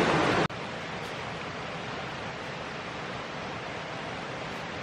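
A creek running nearby, a steady rush of water. It is loud at first and drops suddenly to a quieter, even rush about half a second in.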